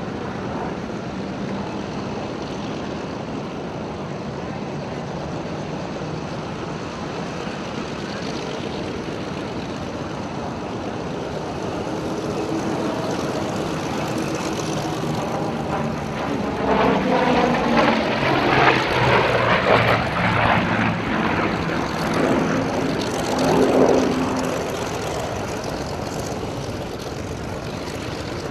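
Grumman F7F Tigercat's twin Pratt & Whitney R-2800 radial engines droning in flight, growing louder and sweeping past about two-thirds of the way through, with the engine note falling in pitch as it goes by.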